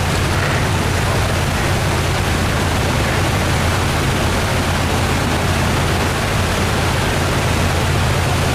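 Steady, loud rush of water pouring through an open sluice gate, with a low steady drone underneath.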